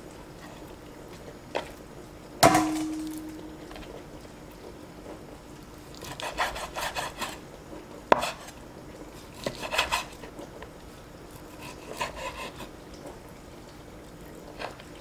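Chinese cleaver cutting raw pork spare ribs on a wooden cutting board. One hard chop about two and a half seconds in rings briefly. Later come several short bouts of the blade slicing and scraping through meat against the board, with a sharp knock near the eight-second mark.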